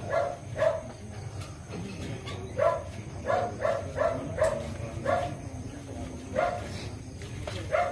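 A dog barking repeatedly in about a dozen short barks at uneven intervals.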